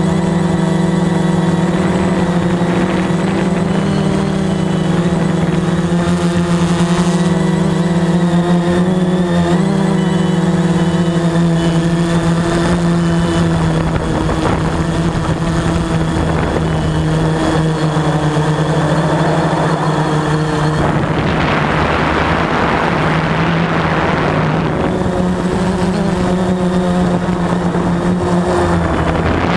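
Veho Muvi Q1 quadcopter's motors and propellers buzzing steadily in flight, the pitch wavering slightly as the rotor speeds change. About two-thirds of the way through, a rushing noise joins the buzz for a few seconds.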